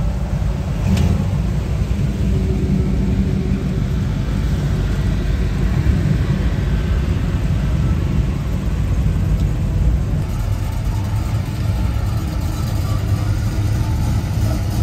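A motor vehicle's engine running with a steady low rumble, its sound shifting slightly about ten seconds in.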